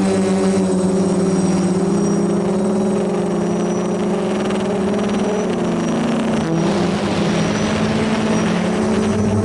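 DJI F450 quadcopter's brushless motors and propellers whining steadily, heard through the onboard action camera's microphone. The pitch wavers as the throttle changes and dips briefly about six and a half seconds in.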